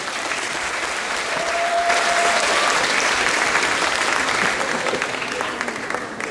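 Audience applauding, building up over the first two seconds and easing off near the end.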